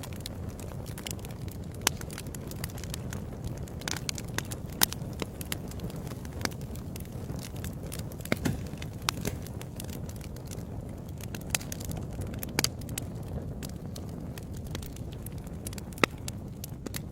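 Fireplace fire burning: a steady low rumble of flames under frequent crackles and sharp pops. The loudest pops come about 2, 5, 12.5 and 16 seconds in.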